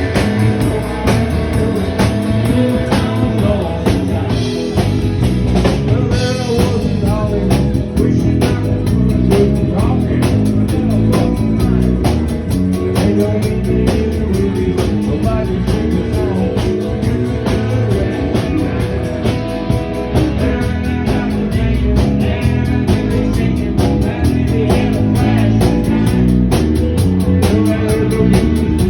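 A rock band playing: guitar and drum kit with a steady beat, and a voice singing over it.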